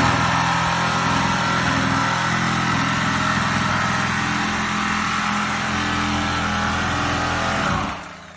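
Gas-powered cut-off saw running at high speed as it cuts open a steel oil tank, then dropping off sharply about eight seconds in and winding down.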